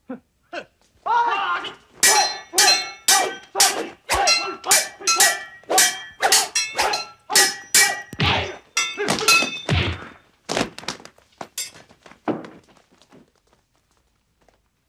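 Staged martial-arts fight sound effects: a rapid series of metal weapon clashes, about two or three a second, each ringing briefly, mixed with a few heavy thuds of blows and kicks. The hits thin out over the last few seconds.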